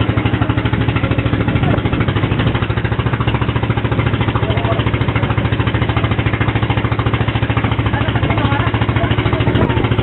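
Boat engine running steadily, with a fast, even pulse and no change in speed.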